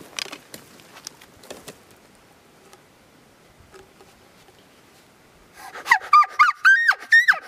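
Cow elk call blown in a quick run of short, high mews and chirps, about four a second, some held briefly before dropping in pitch, starting near the end. Before it, a few faint clicks and rustles in the brush.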